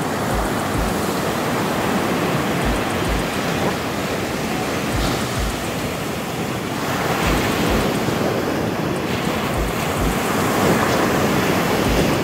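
Ocean surf breaking and washing up on a sandy beach: a steady rush of waves that swells a little after about seven seconds, with wind. Soft low thuds in pairs repeat every two and a half seconds or so underneath.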